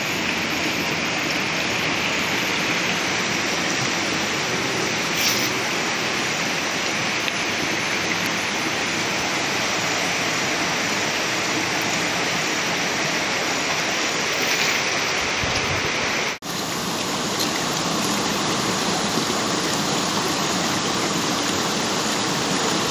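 Steady rush of flowing river water, an even hiss that drops out for a moment about two-thirds of the way through.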